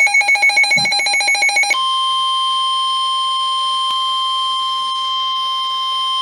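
Rapid electronic alert beeping from a weather radio. About 1.7 s in it gives way to the NOAA Weather Radio warning alarm tone: one steady, high-pitched tone that signals a warning broadcast is about to follow.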